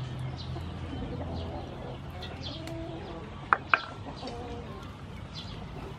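Hens clucking in the background with small birds chirping, and two sharp clicks in quick succession about three and a half seconds in.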